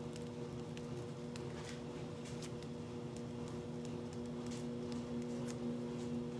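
Pen writing on a card: faint, irregular scratching strokes over a steady low hum.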